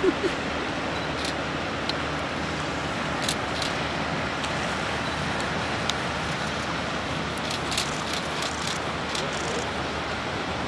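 Steady rushing of flowing river water, with a few faint short clicks now and then.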